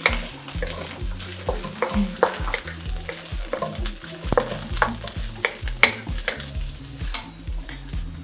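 Diced carrots and broccoli sizzling in hot olive oil in a nonstick wok, with irregular clicks and taps as pieces are tossed in by hand and stirred with a wooden spatula.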